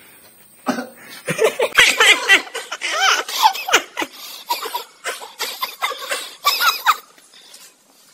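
Men laughing hard in rapid, uneven bursts, starting just under a second in and dying away about seven seconds in.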